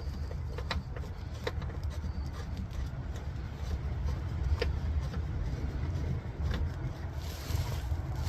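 Steady low engine rumble, with a few sharp clicks scattered through it.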